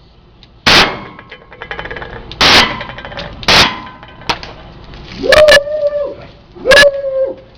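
Glock-style BB pistol firing about five sharp shots at uneven intervals, with a fainter crack between the third and fourth. Each of the last two shots is followed by a short held pitched tone.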